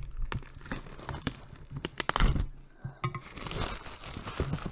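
Packaging being handled and torn open: plastic wrap crinkling and cardboard or plastic tearing, with a knock at the start and scattered sharp clicks, then a longer stretch of rustling from about three seconds in.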